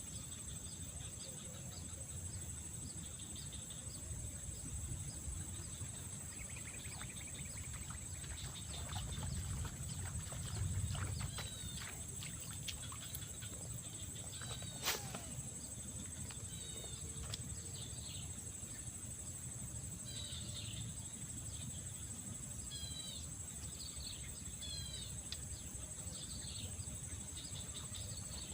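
Small birds giving short, quick chirps over a steady high-pitched insect drone and a low rumble of wind. A single sharp click comes about halfway through.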